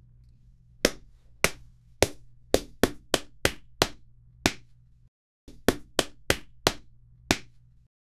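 Stable Audio AI-generated "punching" sound effect: a run of sharp punch hits, about fourteen in all at uneven spacing with a short break about five seconds in. A low steady hum runs under the hits and cuts off shortly after the last one.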